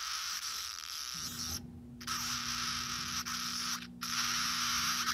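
Electronic static hiss and a steady electrical hum from an aged Toy Story 2 Rex toy's sound unit, whose voice has degraded into noise. The hiss cuts out briefly twice, and the hum comes in about a second in.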